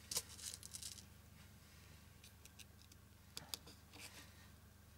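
Faint rustling and crinkling of satin ribbon being folded and handled on a foam ball, with a cluster of soft clicks in the first second and a couple of sharper ticks about three and a half seconds in.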